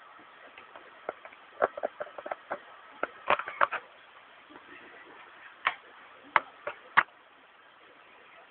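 Sharp clicks of a computer mouse as on-screen text is scrolled: a quick irregular run of about a dozen clicks, then four spaced-out single clicks near the end.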